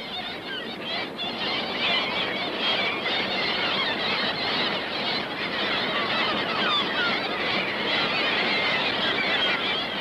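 A large flock of seabirds calling over the sea: a dense mass of many overlapping short cries. It builds over the first couple of seconds and then holds steady.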